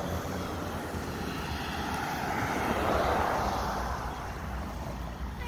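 Bicycle riding over concrete sidewalk slabs, with a low steady rumble of tyres and wind on the microphone. A passing vehicle's rushing noise swells to a peak about halfway through and fades.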